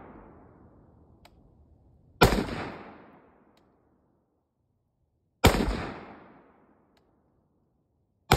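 Gunshots: three single shots about three seconds apart, the last right at the end, each sharp crack trailing off over about a second.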